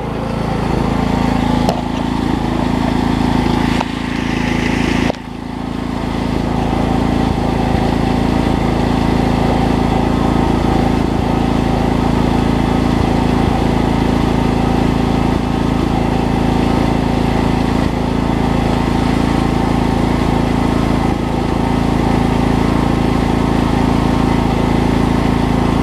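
Briggs & Stratton Vanguard engine of a Coleman portable generator running at a steady speed, with a brief dip about five seconds in.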